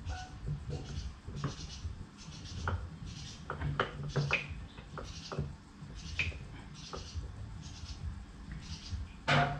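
Irregular small clicks and scrapes of hand tools on metal as an engine mount bolt is worked at, with a louder knock near the end.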